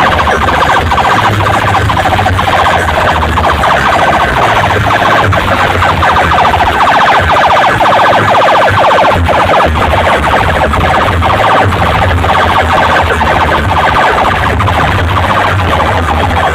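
Loud DJ sound system playing a siren-like electronic warble over intermittent bass beats.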